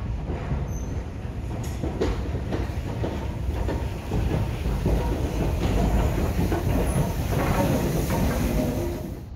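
BR Standard Class 4 2-6-4 tank steam locomotive 80097 running past at close range, a heavy rumble with its wheels clattering over the rail joints. It grows louder about four seconds in as the engine draws alongside, and eases off near the end.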